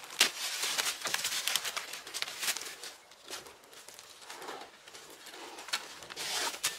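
Footsteps crunching through dry leaves and dead grass while climbing a slope, with the rustle of brushing past branches. There is a quick run of steps over the first couple of seconds, then a sparser stretch, and another cluster near the end.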